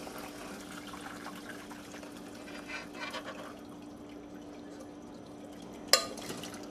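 Turkey stock pouring from a stainless pressure cooker pot through a metal strainer into a bowl, a trickling, splashing pour that thins out after about three and a half seconds. A single sharp metal clink near the end.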